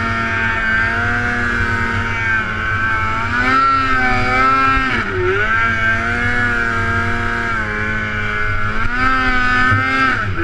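Snowmobile engine running under throttle, its pitch rising and falling as the rider works the throttle, with a sharp brief drop about five seconds in and another near the end.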